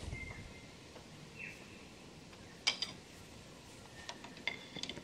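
A sharp metal clink about halfway through, then a few lighter clicks near the end, as a steel toolholder and wrench are handled and fitted at a metal shaper's tool head. Faint bird chirps in the background.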